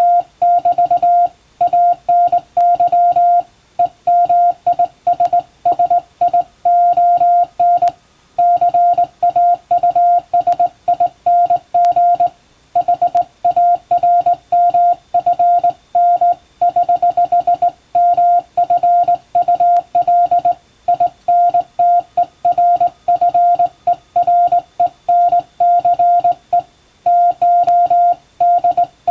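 Morse code sent by hand on a straight telegraph key: a single mid-pitched sidetone keyed on and off in quick dots and dashes, with short gaps between characters and words. The text is an English-language practice telegram.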